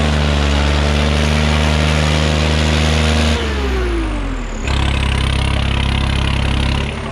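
Swaraj 960 FE tractor's diesel engine running hard under load with a steady drone. About three and a half seconds in its pitch falls away for about a second, then it runs steady again until it eases off near the end.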